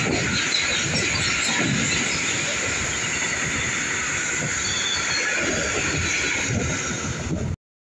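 Freight train of covered hood wagons rolling past at close range: a steady rumble of wheels on rail, swelling as each wagon's bogies go by, with a high, steady screech over it. The sound cuts off abruptly near the end.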